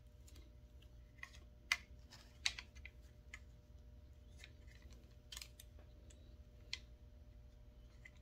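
Irregular light plastic clicks and snaps from an Echo CS-680 chainsaw's throttle trigger and trigger lock being worked into the rear handle, seating the trigger-lock spring.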